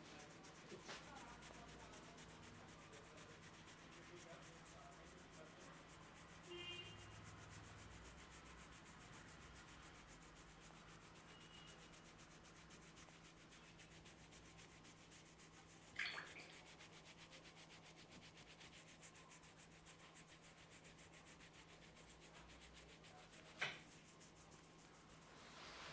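Faint, steady rubbing of hands working over the hair and scalp in a head massage, with a few short sharp clicks, the clearest about two-thirds of the way in and near the end.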